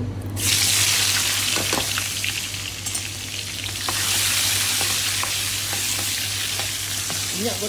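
Sliced onions dropped into hot oil in a stainless steel wok, sizzling suddenly about half a second in and frying steadily. A metal ladle stirs them, with light clicks and scrapes against the pan.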